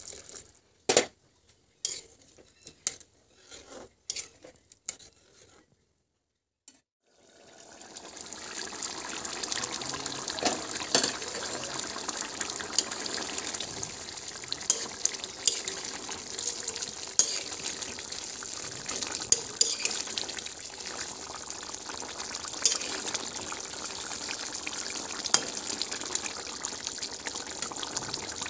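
Chicken curry in a kadai with water just added. Scattered clicks and taps of the ladle against the pan come first, then a brief silence. After that the curry bubbles and sizzles steadily over the flame, with occasional sharp pops.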